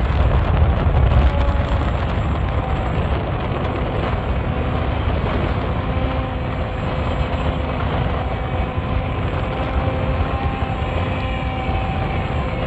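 Strong wind buffeting the microphone with a heavy rumble, over the faint steady hum of a small motor that fades in and out.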